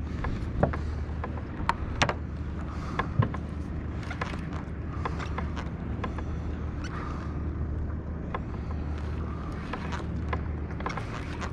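A boat motor hums steadily at a low pitch, with scattered sharp clicks and knocks over it, the loudest about three seconds in.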